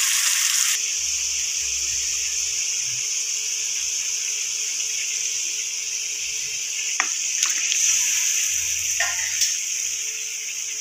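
Tomato masala sizzling steadily in oil in a frying pan. Several sharp clicks and knocks come in the second half as raw chicken pieces are tipped in from a steel bowl.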